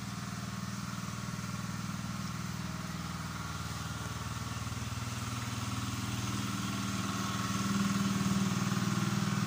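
A small engine running steadily with a low hum, getting a little louder near the end.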